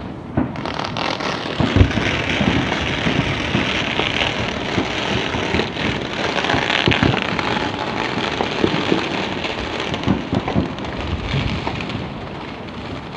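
Fireworks and firecrackers going off across the city: a dense, rapid crackle that sets in sharply about half a second in and dies away near the end, with scattered low booms from aerial shells.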